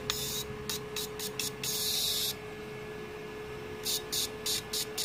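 Welding rod touching a wire-wound 9-ohm resistor load on a repaired Morris 160 A IGBT inverter welder, giving short bursts of hissing crackle from arcing at the contact. One burst near two seconds in lasts longer. A steady hum runs underneath.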